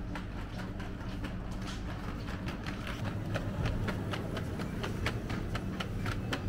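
Small plastic wheels of a pulled shopping basket trolley rattling and clicking over the joints of a tiled floor, a quick, uneven run of clicks that grows busier about two seconds in, over a steady low hum.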